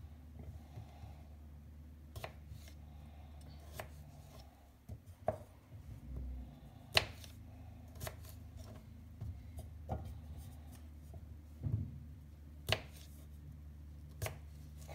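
Paring knife cutting small raw potatoes on a cutting board: irregular sharp knocks as the blade goes through and hits the board.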